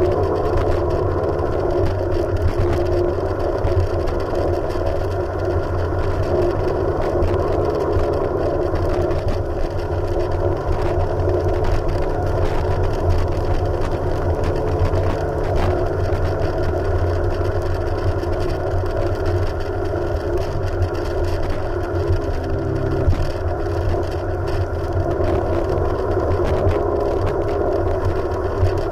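Jet ski engine running steadily at an even speed.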